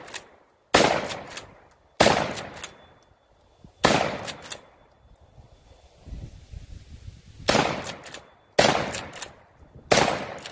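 Pro Series L lever-action 12-gauge shotgun firing six shots, three in quick succession, a pause of a few seconds, then three more, with the lighter clacks of the lever being worked to eject each spent shell and chamber the next between shots.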